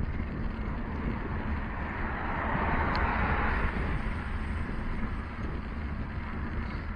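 Wind rumbling on the microphone of a camera on a moving bicycle, with a car passing alongside about three seconds in: its tyre hiss on the wet road swells and fades.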